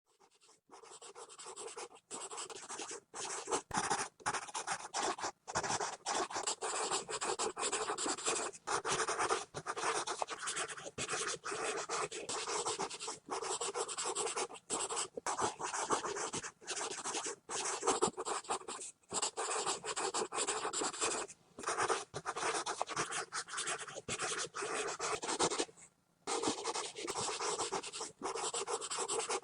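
Pencil scribbling hard and fast on paper: continuous scratching strokes, broken every second or two by brief pauses as the pencil lifts, with a longer pause near the end.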